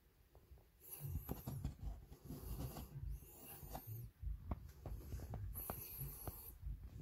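Handling noise: scratchy rubbing with many light clicks and knocks as the plastic bumper and phone are moved about, starting about a second in.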